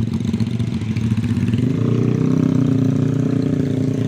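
Single-cylinder four-stroke Honda Tiger motorcycle engine running: a fast pulsing note that, about halfway through, steadies and rises a little as the revs pick up.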